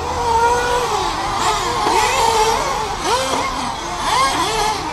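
Several nitro-powered RC buggies and truggies racing, their small glow engines whining and revving up and down over one another as they accelerate and brake around the track.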